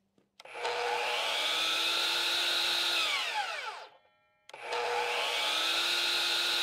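DeWalt FlexVolt 12-inch sliding miter saw (DHS790AT2) with its brushless motor run off the corded power supply, started twice with no cut. Each time it revs up at once to a steady whine. The first run lasts about three seconds and stops quickly under the blade brake with a falling whine. The second starts a little after halfway and is still running at the end.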